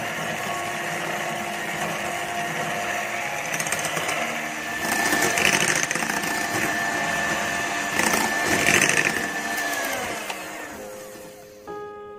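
Electric hand mixer running at medium-high speed, its twin beaters whipping egg whites into stiff meringue. It swells louder twice in the middle, then the motor winds down and stops near the end as piano music begins.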